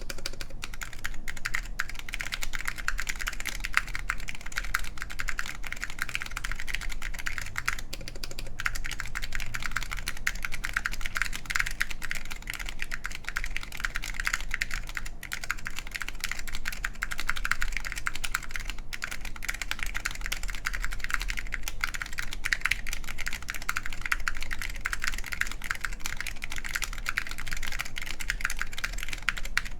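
Continuous fast typing on a mechanical keyboard with SKCL Green Alps-style linear switches, wax-boiled, in a full aluminium plate with Apple Extended Keyboard II keycaps: a dense run of key clicks.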